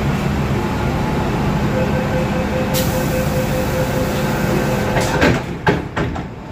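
First-generation MTR M-Train electric multiple unit running, heard from inside the car: a steady rumble of wheels and traction equipment with a steady hum, then a few sharp clacks about five seconds in.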